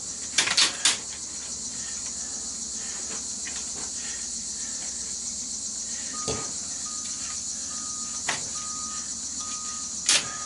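Steady high chirring of an insect chorus, with a few sharp clicks of wire cutters, loudest about half a second in and near the end. From about the middle, a faint short beep repeats about every half second.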